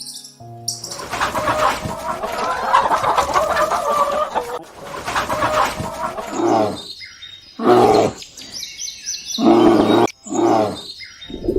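Farm animal calls: a busy, dense chatter for the first few seconds, then several loud separate calls, each under a second long.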